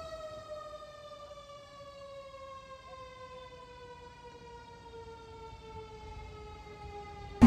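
Fire engine's mechanical siren winding down after it is let off: one long tone that falls slowly and steadily in pitch, fading as it goes.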